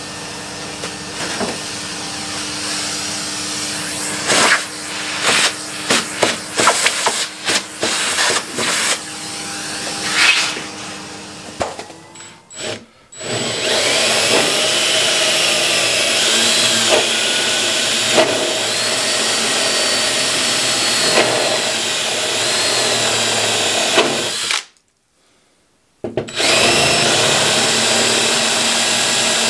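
A run of knocks and clicks, then, from about 13 s in, a cordless drill running steadily as it bores the wiper-spindle holes in the car's body panel, its pitch wavering under load; it stops briefly near the end and then runs again.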